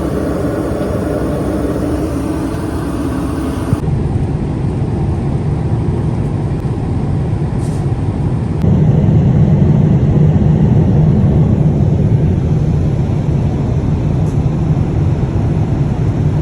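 Steady roar of a jet airliner cabin in flight, the engine and airflow noise heard from inside. The noise changes abruptly twice, about four and about nine seconds in, getting louder and deeper at the second change.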